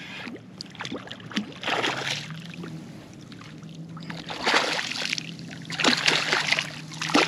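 Water splashing in several irregular bursts as a hooked trout thrashes at the surface while being landed, over a faint steady low hum.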